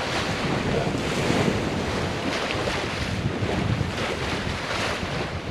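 Wind buffeting the microphone over the steady rush of sea water and waves alongside a sailboat under way.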